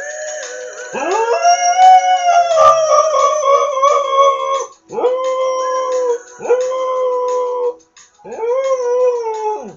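Dog howling: four long howls, each sliding up in pitch, held, then dropping away at the end. The first is the longest, about four seconds, and three shorter ones follow with brief gaps between.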